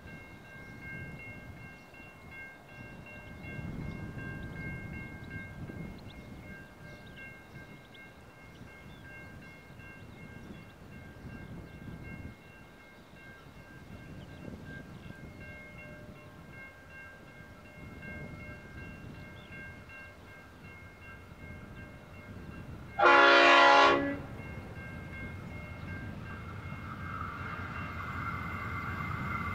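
A level crossing bell rings steadily while the Victorian Railways A-class diesel locomotive A73 approaches. About 23 seconds in, the locomotive's horn sounds one loud blast of about a second. After that the engine sound grows louder toward the end as the train draws near.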